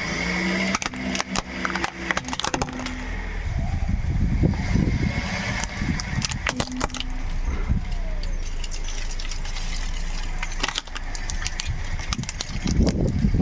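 Car running over toys and crunchy objects, crushing them: clusters of sharp cracks and crunches over the low rumble of the engine and tyres.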